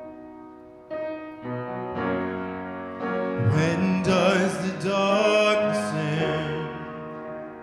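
Grand piano playing chords, struck a few times in the first two seconds. A man sings a long, wavering line over them from the middle, and the piano rings on alone near the end.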